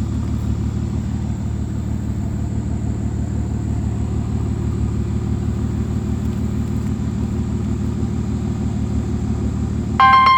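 2009 Aston Martin DB9's V12 engine idling steadily, heard close at the exhaust tailpipe. Near the end a bell-like musical chime comes in over it.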